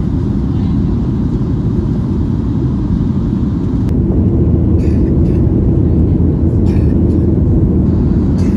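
Steady low cabin roar of a Boeing 737-800 with CFM56-7B turbofan engines in flight, heard from inside the cabin; it grows slightly louder about halfway through.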